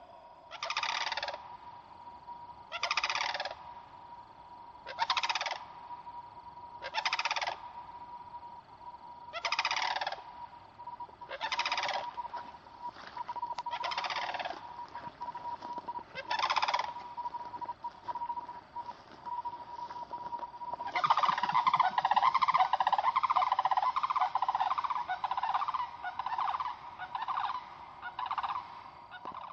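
Sandhill cranes calling: single loud calls about every two seconds. About two-thirds of the way through, several birds break into continuous overlapping calling as they fly.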